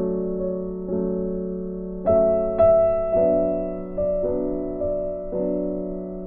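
Gentle background music of piano chords, a new chord struck about once a second and left to ring and fade.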